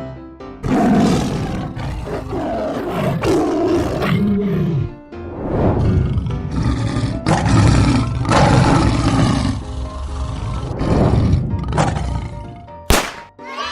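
Several roars, one after another, from cartoon big cats such as a lion and a tiger, over background music. A single sharp crack sounds near the end.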